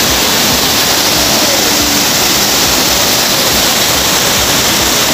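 Small waterfall pouring into a rock pool: a steady, loud rush of falling water.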